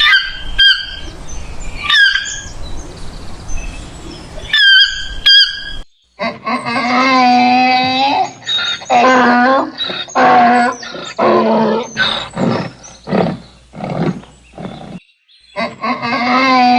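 Animal calls: a few short, high, gliding cries over a rough background, then a series of long, wavering, pitched calls repeated with short pauses.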